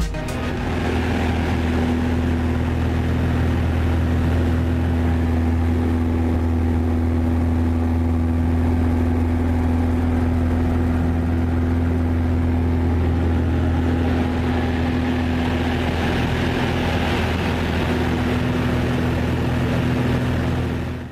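Aerobatic monoplane's piston engine and propeller running at steady high power: a loud, constant drone that holds one pitch throughout and stops abruptly near the end.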